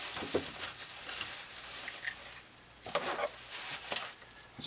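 Bubble wrap rustling and crackling as a hand digs through it. It comes in two spells, the first about two seconds long and the second starting about three seconds in.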